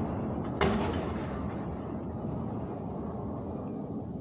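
Large aerial firework shells: the low rumble of a burst rolling and slowly fading, with one sharp crack about half a second in.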